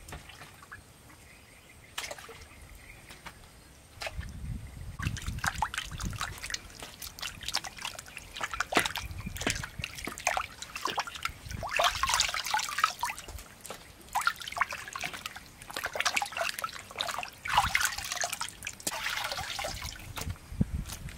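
Hands sloshing and rubbing raw pork pieces in a stainless-steel bowl of water, with irregular splashes and drips, starting about four seconds in.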